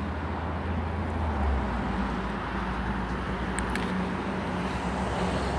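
Road traffic on a busy street: a steady low rumble of passing cars, with an engine hum holding steady through the middle.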